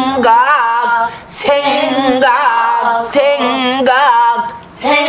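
A woman sings pansori solo. She draws out long, wavering notes with wide vibrato in three phrases, with two short breaks for breath.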